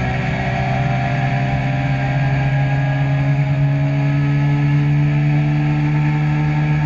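Legend race car's Yamaha four-cylinder motorcycle engine, heard from inside the cockpit, running at steady moderate revs, its pitch rising slowly from about two seconds in.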